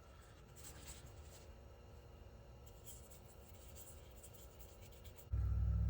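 Faint, scattered scratchy rubbing sounds. About five seconds in, a loud steady low hum starts abruptly.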